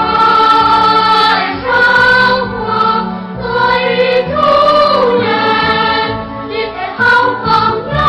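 Cartoon theme song: a choir sings a melody in held notes over instrumental backing.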